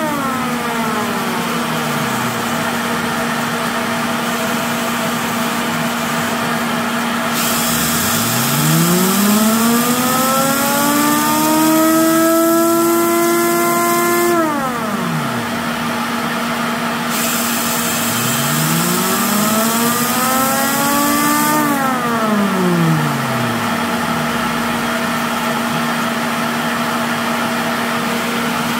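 Worx leaf blower running steadily into a homemade chopper siren, a constant hum with rushing air. Twice a cordless drill spins the siren up: its wail rises over several seconds to a low pitch, holds, then falls away, with the drill's whine over the rise. The wail stays low and weak because the chopper is slipping around on its shaft.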